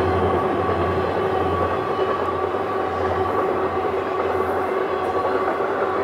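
Freight train cars rolling past: a steady rumble of wheels on rails with a low drone underneath and a faint steady whine over it.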